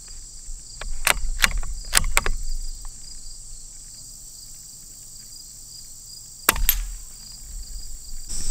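Suppressed Savage FVSR .22 LR bolt-action rifle: four quick sharp clicks about a second in as the bolt is worked, then near the end a single shot followed closely by a second crack. Crickets and insects buzz steadily throughout.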